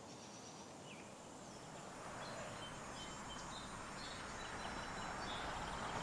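Faint outdoor town ambience: an even background hiss that slowly grows louder, with a few short bird chirps scattered through it.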